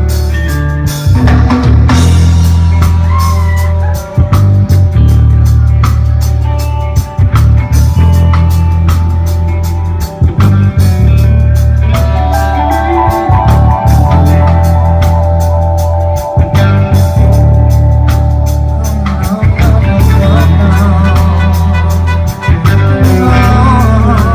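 Live reggae band playing loudly: a heavy, pulsing bass line over drum kit and electric guitars.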